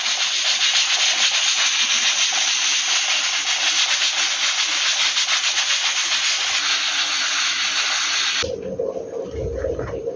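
Pressure cooker on a gas hob venting steam through its rocking weight valve: a loud, steady hiss with a fast flutter, which cuts off suddenly after about eight and a half seconds. The hiss is the sign that the cooker is at full pressure, cooking the hominy for canjica.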